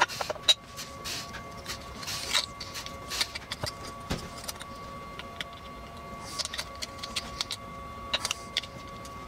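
Scattered light clicks and clinks of metal and plastic parts being handled as a new agitator shaft and its retaining clip are fitted into a Maytag orbital washer transmission, over a faint steady tone.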